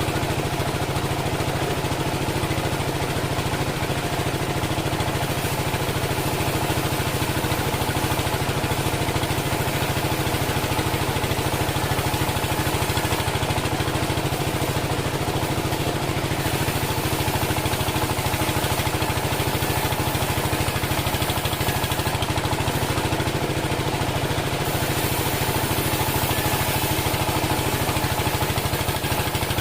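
Engine of a homemade band sawmill running steadily at an even speed.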